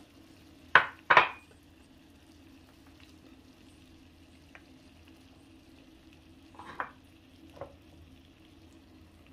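Kitchen handling sounds as fava beans are tipped from a ceramic bowl into a small clay tagine. Two sharp clatters come about a second in, then a few softer knocks of a wooden spatula and dishes near seven seconds, over a low steady hum.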